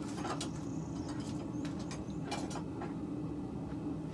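A steady low hum, with a few faint light clicks and taps.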